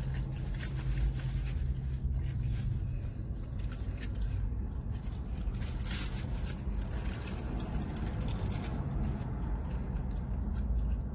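Eating sounds inside a car: chewing and the rustle and crinkle of paper food wrappers, in scattered short clicks and scrapes. Under them runs the car's steady low hum.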